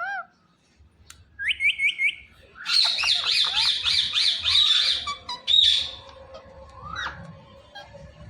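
Indian ringneck parrot squawking: four quick rising calls, then a fast run of harsh chattering squawks for about two seconds, with a couple of single calls near the end.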